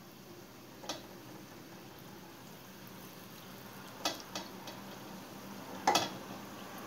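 Breaded chicken wings deep-frying in a pot of hot oil: a steady low sizzle that grows a little louder. It is broken by a few sharp knocks, about a second in, twice around four seconds and loudest near six seconds, as more wings go into the pot.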